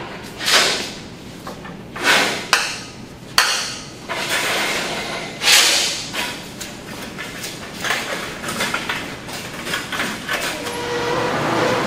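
Rods of hanging handmade noodles being handled on metal drying racks: a few sharp knocks and clacks of the rods against the rack bars between soft swishing sounds. Near the end a steady rushing noise rises.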